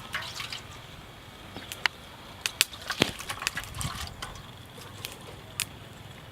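Water sloshing and dripping, with sharp clicks and knocks scattered through, as food is handled in water.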